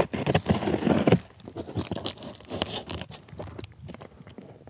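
Knife blade slitting clear packing tape along a cardboard box's seam: a run of tearing and scraping, loudest in the first second, then quieter crackles and scratches as fingers work the taped cardboard flaps loose.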